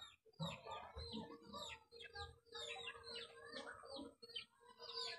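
Faint chirping of birds: many short, falling calls overlapping one another.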